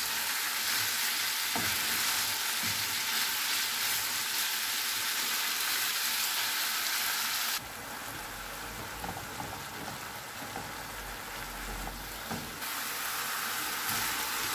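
Minced meat sizzling in oil in a non-stick frying pan, stirred with a wooden spatula that scrapes and taps against the pan now and then. The sizzle drops suddenly to a quieter level about halfway through and comes back up about five seconds later.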